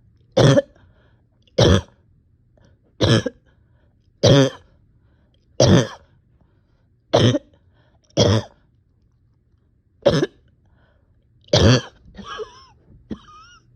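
A person coughing repeatedly, about nine sharp coughs spaced a second or so apart. The person is unwell with chest pain.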